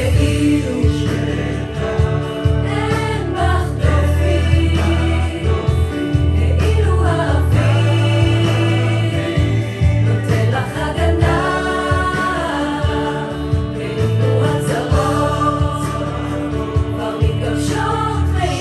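A vocal ensemble singing a choral arrangement in several-part harmony, with held notes over a low sustained bass line.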